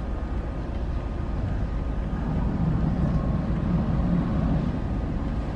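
Steady low rumble of a cruise ship's engines running, swelling a little for a couple of seconds midway.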